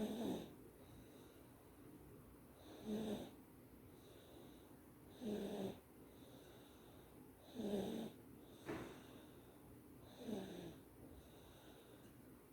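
Sleeping baby snoring softly: five short snores about every two and a half seconds, each dipping slightly in pitch.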